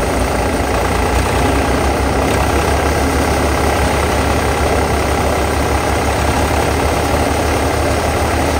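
Tractor engine running steadily under load while it drives a threshing machine, a continuous dense mechanical noise over the engine's low rumble.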